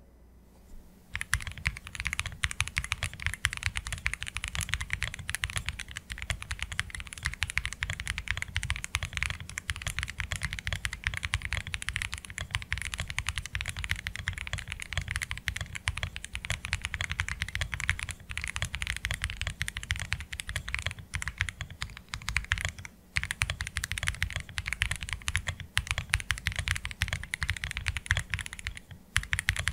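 Typing sound test on a Heavy Shell Pare65 65% keyboard: an aluminium case with a flex-cut PCB, Domikey Astronaut switches and Domikey Fading keycaps. Fast, continuous keystrokes start about a second in, broken by a couple of brief pauses.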